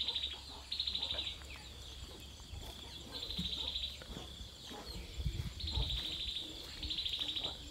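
Insect trills: short, finely pulsed buzzy bursts at a high pitch, each under a second, repeating several times with gaps between them.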